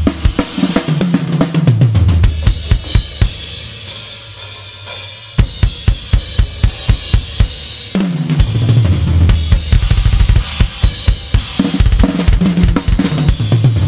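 Acoustic drum kit played in a groove, its Goliath snare picked up by a microphone under the snare. Tom rolls step down in pitch near the start, about eight seconds in and near the end. A cymbal-heavy stretch comes around four seconds in, followed by steady, evenly spaced kick drum strokes.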